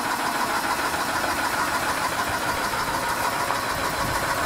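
Small generator engine running steadily at an even speed.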